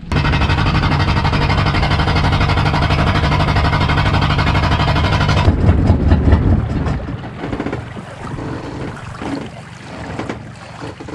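Boat engine running steadily at constant speed, cutting off abruptly about five and a half seconds in; the sound then drops to a much lower level.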